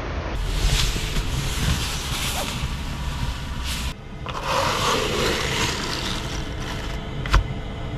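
Steady outdoor air noise, then a cut to the rustle and scrape of a pleated window blind being slid open by hand, with a single sharp click near the end.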